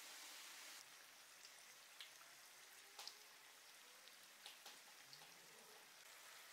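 Samosas deep-frying in a wok of hot oil: a faint, steady sizzle with scattered sharp pops and crackles.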